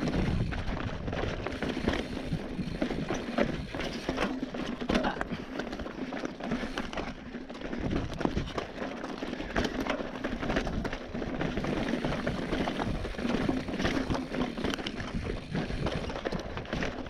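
Mountain bike descending over loose, wet stones: tyres crunching over rock with a constant rattle of knocks and clatter from the bike.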